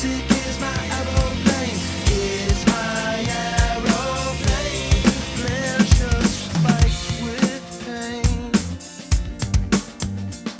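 Acoustic drum kit played along to a recorded song: bass drum, snare and cymbal strokes in a steady groove over the music's bass and singing. The backing music thins out near the end while the drumming continues.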